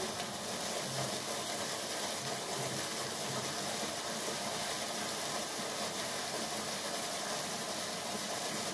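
A steady hiss of background noise, with a few faint low blips in the first few seconds.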